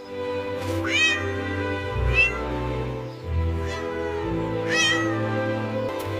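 Cartoon cat meowing three times, each meow rising then falling in pitch, over steady background music.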